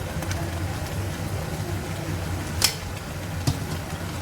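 Two sharp clinks about a second apart, a spoon knocking against the cooking pot while salt goes into the chili sambal, over a steady low hum.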